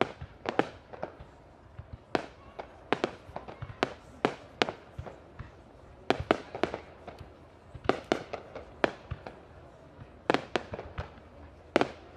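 Aerial firework shells from a professional display bursting in an irregular run of sharp bangs, about two a second, each trailing a short echo.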